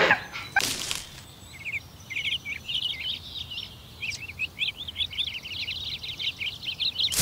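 Small birds chirping and twittering in quick, dense, high calls that go on through most of the stretch. Near the start there is a brief swishing rush.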